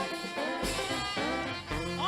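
Instrumental music with brass-like tones, the introduction to a Yoruba gospel song.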